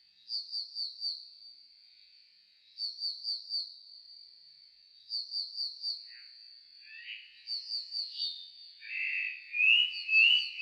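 Nightingale song slowed to a quarter of its speed. A phrase of four quick high notes repeats about every two and a half seconds over a steady thin high tone. From about six seconds in, a lower, louder run of sliding notes joins it and becomes the loudest part.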